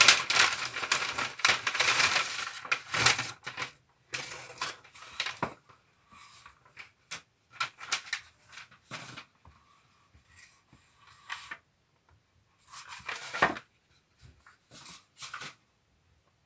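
Packaging being handled and opened: rustling and crinkling with scattered sharp clicks and taps. It is dense for the first few seconds, then comes in short separate bursts with pauses between them.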